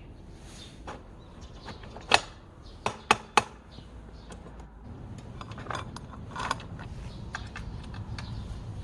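Metal tools clinking and knocking while a motorcycle tube tire is being worked on: scattered clicks, with four sharp metallic knocks between about two and three and a half seconds in.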